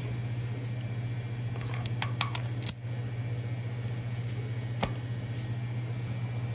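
Light metal clicks and clinks as a fuel injector is lowered and set into its bore in a 6.7L Cummins cylinder head: a quick cluster about two seconds in, a sharper click just after, and one more near five seconds. A steady low hum underneath.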